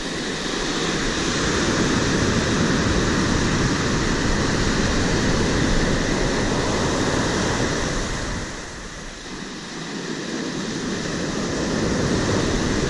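Surf breaking and washing up the beach, with wind on the microphone. The wash eases about two-thirds of the way through, then builds again near the end.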